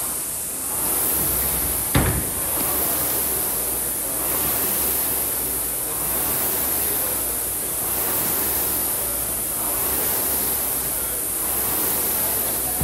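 Indoor rowing machine's fan flywheel whooshing steadily, swelling with each stroke about every two seconds. A single sharp knock sounds about two seconds in.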